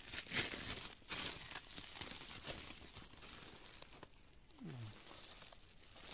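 Plastic sack rustling and crinkling as it is handled and pulled open, most busily in the first second.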